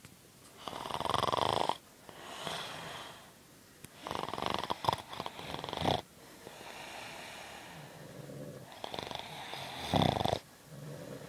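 Loud snoring: several rough snores a few seconds apart, with quieter breathing between them.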